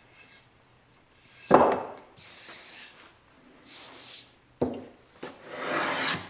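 Hand plane taking several strokes along a paulownia board, each stroke a sharp bite followed by a hissing, scraping slide as the shaving comes off.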